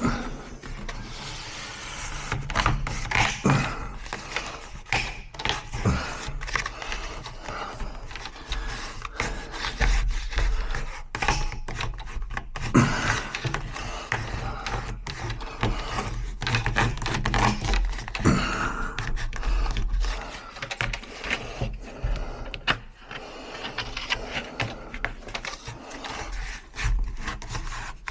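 Hand-tool work on a wooden door's tubular latch: irregular clicks, knocks and scrapes of metal against wood, over a steady low hum.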